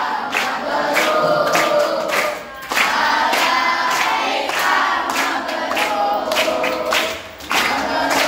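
A large group of boys singing together in unison while clapping their hands in a steady beat, with short breaks between sung lines.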